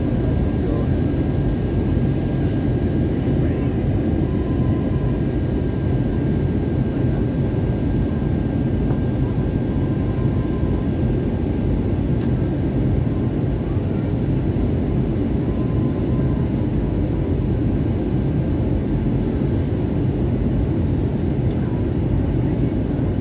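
Steady low roar inside an airliner cabin in flight, the engine and airflow noise of the descent, with a faint steady whine above it.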